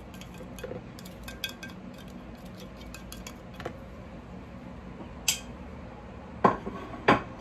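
A plastic spoon scraping and tapping ground spices off a plate into a mixing bowl, with light scattered ticks, then a sharp click and two louder clatters of dishes near the end.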